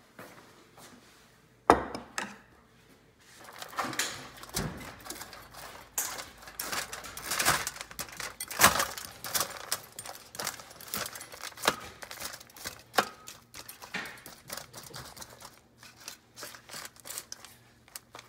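A knife cutting and pulling apart slow-cooked tenderloin on aluminium foil, with a quick, irregular run of clicks, taps and scrapes of the blade on the foil and pan. A single sharp knock comes about two seconds in.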